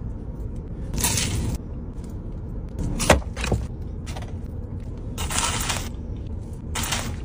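Paper pastry box and flaky pastry being handled, with short bursts of rustling and crackling and a couple of sharp clicks. Under it runs the low rumble of a car's cabin.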